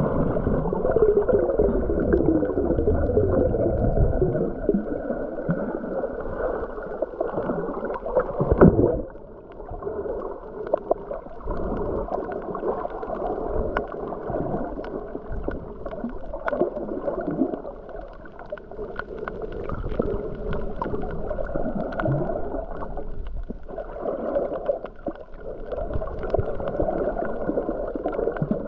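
Muffled underwater water noise, steady and wavering, with a single sharp knock about nine seconds in.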